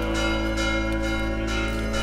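Church bells ringing: repeated strikes over a wash of lingering tones.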